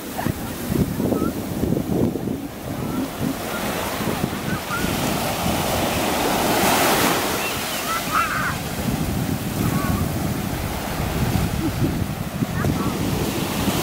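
Small surf breaking and washing up a sandy beach, with wind buffeting the microphone; a wave swells up and washes in about six to seven seconds in. Faint voices come and go in the background.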